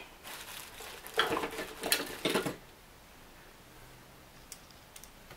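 Metal hand tools rattling and clinking as screwdrivers are rummaged through and swapped, for about two and a half seconds, followed by a couple of faint clicks.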